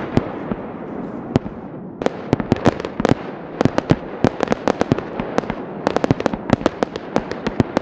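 Aerial fireworks: a steady hiss of burning effects with a few sharp cracks. About two seconds in, a dense run of cracks and pops begins, several a second.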